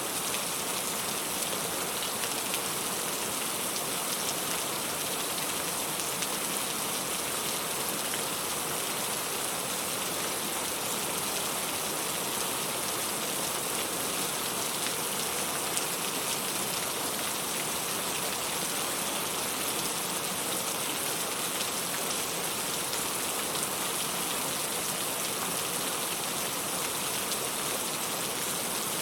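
Steady rainfall, an even hiss of falling drops with no thunder.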